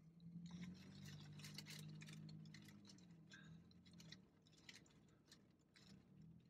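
Faint rustling and clicking handling noises, most of them in the first three seconds, over a low hum that fades out about four seconds in.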